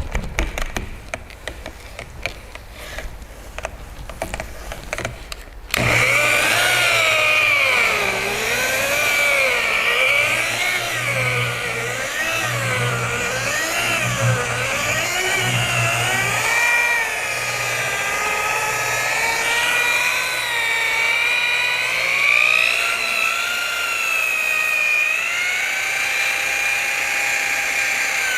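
A rotary polisher starts suddenly about six seconds in and keeps running, its whine wavering up and down in pitch as it is worked over the paint. It is polishing 3000-grit sanding marks out of single-stage paint. Scattered clicks and handling knocks come before it starts.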